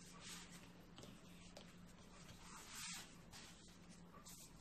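Faint rustling of thin phyllo pastry sheets being handled by hand, a little louder about three seconds in.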